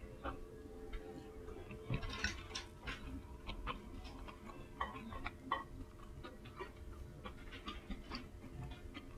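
Eating ramen: irregular light clicks and taps of chopsticks and a soup spoon in the bowl, with chewing, over a faint steady hum.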